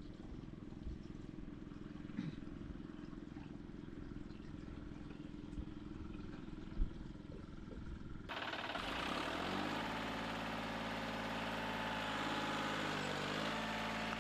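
John Deere 5310 diesel tractor engine idling steadily while fuel is poured into its tank. After a cut, the engine is heard working hard, its pitch rising about a second later and shifting again near the end.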